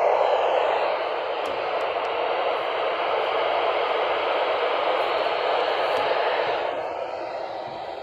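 Static hissing steadily from the speaker of a weather/all-hazards radio tuned to a weak NOAA Weather Radio signal, easing off a little near the end.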